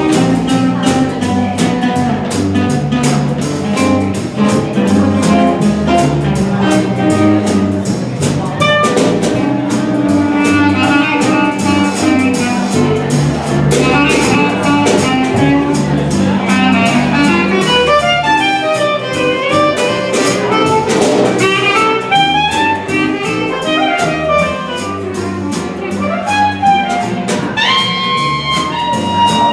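Small live jazz combo playing an instrumental passage: a clarinet plays the melody over electric guitar chords and a drum kit.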